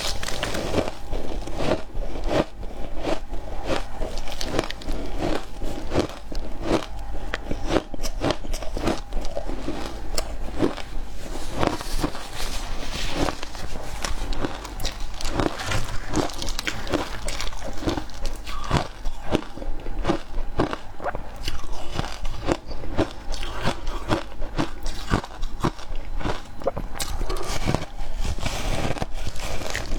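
Mouth biting and chewing shaved ice with milk powder, close up: a continuous run of crisp crunches, a few a second.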